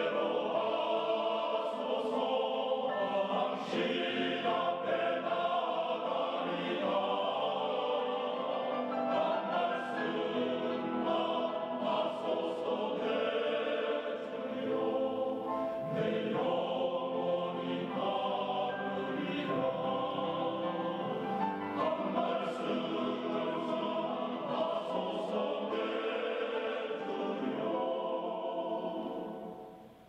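Choral music with many voices singing, fading out near the end.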